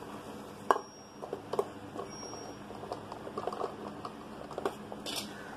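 Orange juice poured from a plastic measuring cup onto crumbly scone dough in a glass bowl, with scattered light clicks and taps as the cup and bowl are handled.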